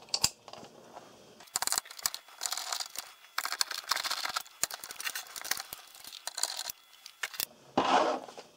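Irregular small clicks and rustling as screwdriver bits are handled and swapped in a driver.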